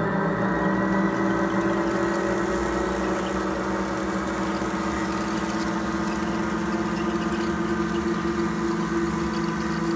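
Scratch-built electronic diesel locomotive sound generator playing a synthesized diesel engine sound through a speaker under a model railroad layout: a steady, buzzy drone of several held tones.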